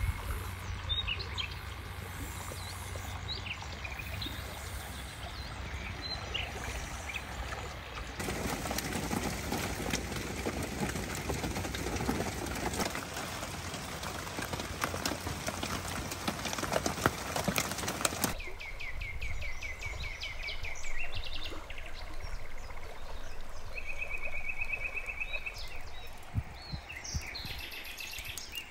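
Wild birds calling and singing, with quick trills of rapidly repeated notes in the last third. A steady rushing noise cuts in suddenly about a third of the way through and stops just as suddenly after about ten seconds.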